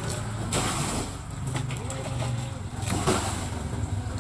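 A small engine runs steadily at a low pitch, with a couple of sharp knocks or scrapes from the digging work around the septic tank, about half a second in and again about three seconds in.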